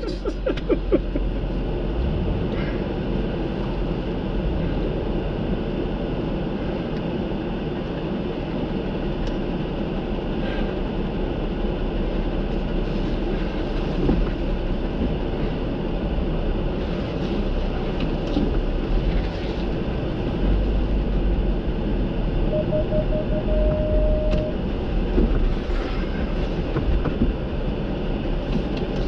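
Jeep driving on a rough forest service road, heard from inside the cab: steady engine and tyre rumble with occasional knocks. A short run of beeps comes about three-quarters of the way in.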